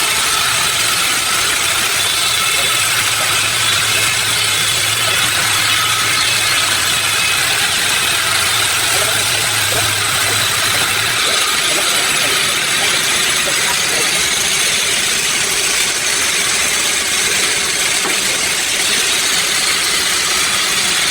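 Sawmill machinery running steadily: a loud, even mechanical noise, with a low hum under it that stops about halfway through.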